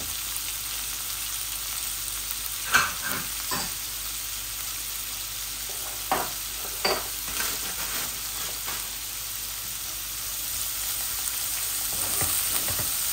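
Sliced carrots and red onion sizzling in hot oil in a non-stick wok, with a wooden spatula knocking against the pan a few times as they are stirred. The sizzle grows a little louder near the end.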